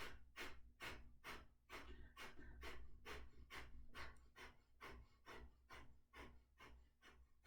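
Kapalbhati pranayama breathing: short, forceful exhalations through the nose, faint and evenly paced at a little over two a second, each a quick puff of air.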